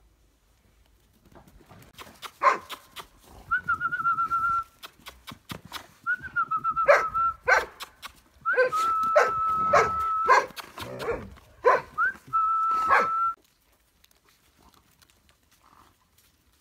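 Briard puppies yapping in short sharp barks, mixed with long high whines held about a second each. The calling stops a few seconds before the end.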